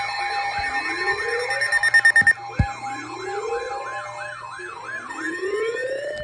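Layered emergency alert sounds: steady alert tones under a fast siren warble that sweeps up and down about three times a second, with a slower siren wail rising every couple of seconds. A sharp click sounds about two and a half seconds in.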